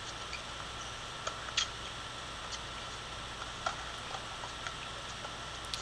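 Faint sharp pocks of tennis balls struck by racquets and bouncing on a hard court during a rally, about once a second, over a steady low hiss.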